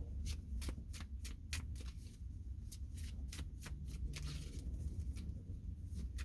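A deck of tarot cards being shuffled by hand: a run of quick, irregular card snaps and rustles, over a low steady hum.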